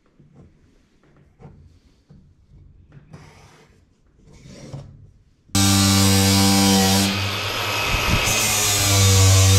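Cordless angle grinder starting abruptly about halfway through and running at a loud steady whine, pressed against the steel container ceiling to grind off thick powder-coat paint, its pitch dipping briefly as it bites. Before it starts, faint handling knocks and rustles.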